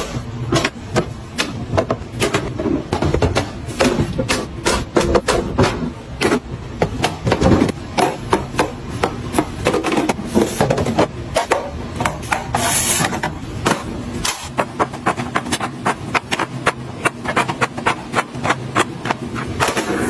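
Apples, and later eggs, being set into clear plastic refrigerator storage bins: a dense, uneven run of knocks and clicks of hard items and plastic against plastic.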